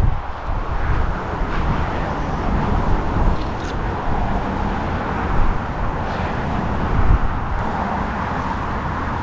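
Road traffic on the neighbouring highway bridge: a steady rush of cars passing, with a continuous low rumble.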